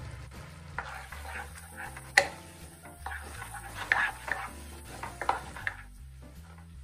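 Wooden spatula stirring and scraping masala paste around a nonstick frying pan as ground spices are roasted in the oil, with some sizzling. There is a sharp knock about two seconds in, and further scrapes around four and five seconds.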